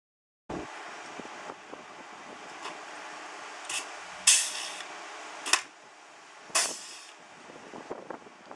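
Pneumatic pop-rivet gun setting rivets into the sheet-metal wall: four short, sharp hisses of air within about three seconds, over a steady background hiss.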